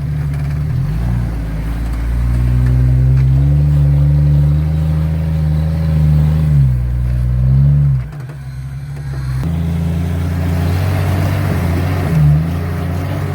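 Jeep engine revving under load, its pitch rising and falling; it drops off suddenly about eight seconds in, then picks up again a second and a half later.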